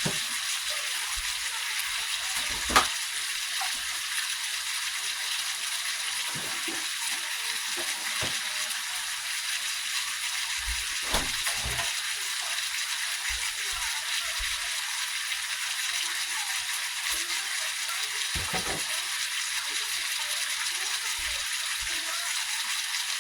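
Ribeye steak sizzling steadily as it cooks, with a sharp clink about three seconds in and a smaller one around eleven seconds.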